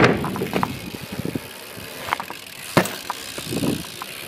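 BMX bike riding on concrete: tyres rolling, with a sharp knock right at the start and another about three seconds in, and scattered light clicks between.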